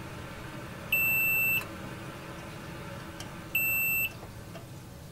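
Multimeter continuity tester beeping twice, each a steady high beep about half a second long, as the probes bridge a fuse: the beep signals continuity, meaning the fuse is intact.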